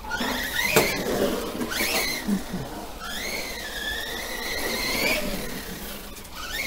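Brushless electric motor of a Remo Hobby Dinosaurs Master 5 RC monster truck running on 3S, whining and rising and falling in pitch as the truck speeds up and slows. A sharp knock comes just under a second in, with a shorter one about two seconds in.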